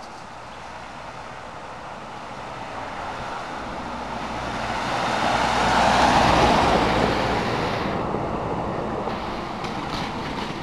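Ford double-cab pickup truck driving past over broken, potholed asphalt: tyre and engine noise that grows to a peak about six seconds in and then fades away.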